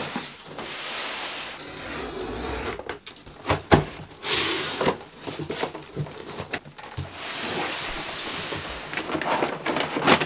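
Cardboard delivery box being unpacked by hand: packing tape peeled off, flaps pulled open, and plastic packaging rustling as groceries are lifted out, with scattered knocks of cardboard, one sharp knock about four seconds in.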